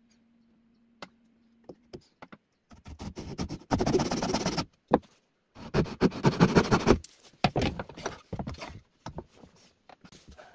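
Backsaw cutting a softwood board in two spells of quick strokes, the first about three seconds in and the second shortly after, with light knocks and scrapes of saw and wood around them.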